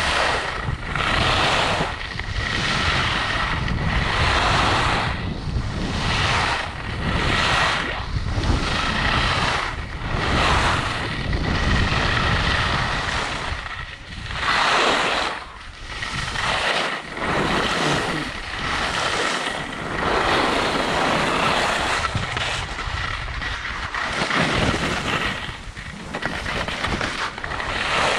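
Skis carving down a groomed piste, the snow scraping under the edges in swells every second or two as the turns link, with wind rushing over the microphone.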